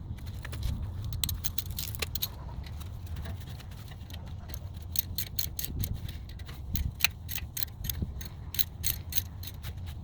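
Ratchet wrench clicking in quick runs of sharp metallic clicks, most of them in the second half, over a low steady rumble.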